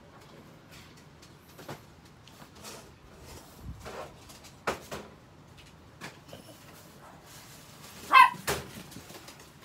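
A Chihuahua gives one short, high-pitched bark about eight seconds in, among scattered light taps and knocks.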